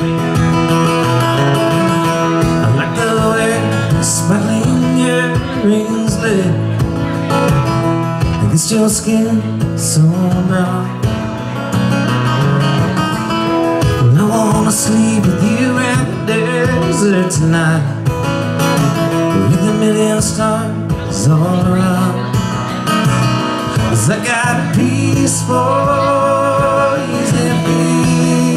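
Acoustic guitar strummed steadily, with a man singing over it through a PA.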